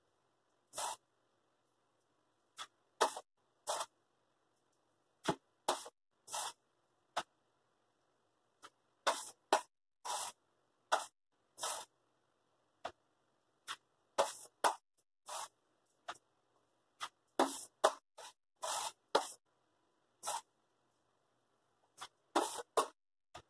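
Drywall knife spreading freshly mixed drywall mud, a second coat going on. It makes a series of short scraping strokes at irregular intervals, with brief gaps between them.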